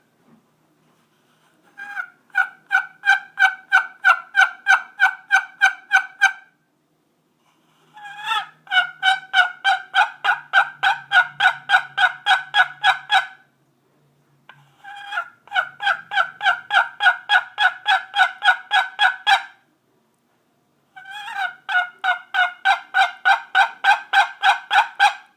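Hand-made turkey call being played: four long runs of rapid, evenly spaced turkey-like notes, about four a second, each run lasting four to six seconds with short pauses between.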